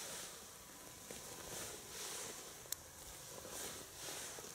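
Faint rustling of a camouflage jacket sleeve as an ice angler pulls fishing line up out of the hole hand over hand, swelling about once a second with each pull, and one sharp click a little past halfway.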